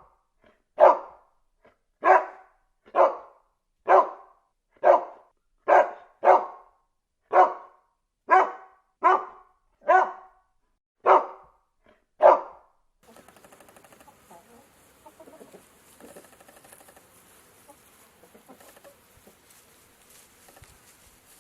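A dog barking, single loud barks about once a second, a dozen or so in a row, which stop about 13 seconds in, leaving only a faint, quieter background.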